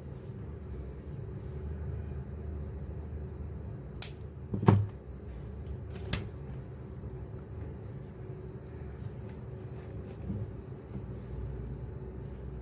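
Hands working a two-core electrical cable: a few short clicks and knocks, the loudest a little under five seconds in, over a low steady hum.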